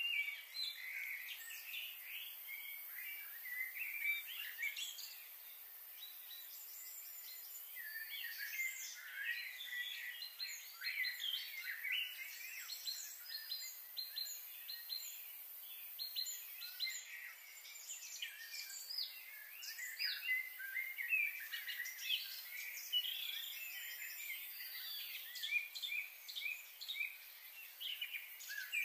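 Small birds chirping and twittering steadily, many short high calls overlapping, with a brief lull a few seconds in.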